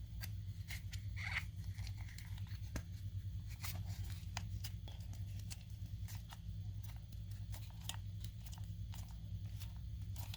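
Scattered light clicks and rustles of small plastic parts being handled, over a steady low hum.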